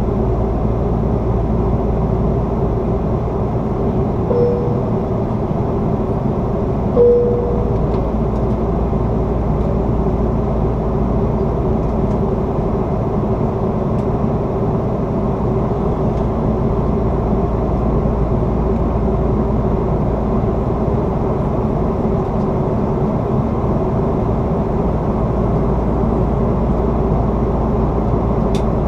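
Airbus A330-300 passenger cabin in flight: the steady, deep roar of the engines and the airflow over the fuselage, with a low hum running through it. Two short beeps sound about three seconds apart a few seconds in.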